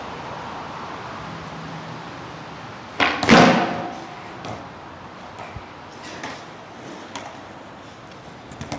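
Skateboard wheels rolling slowly on concrete, then a loud clatter about three seconds in as a kickflip attempt comes down and the board hits the pavement. A few lighter knocks follow as the board is stepped on and rolled again.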